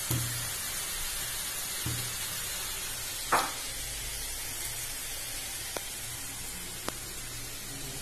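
Sliced onions frying in hot oil in a kadhai: a steady sizzle, with a few knocks and a louder clatter about three seconds in.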